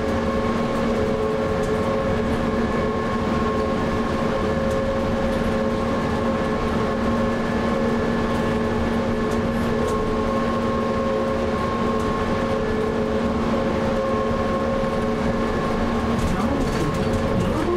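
Trolleybus running at a steady speed through the Tateyama Tunnel, heard from inside near the front: an even rush of tyre and running noise with a steady hum of several held tones from its electric drive.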